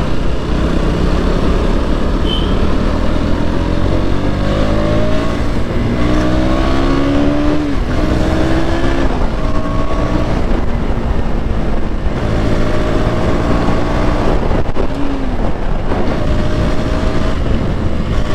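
KTM Duke's single-cylinder engine under way, its revs climbing and falling back again and again as the bike accelerates and changes gear, over a steady rush of riding noise.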